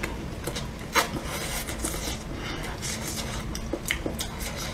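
Close-miked chewing and mouth sounds as hot pot food is eaten: irregular soft clicks and smacks, with one sharper click about a second in.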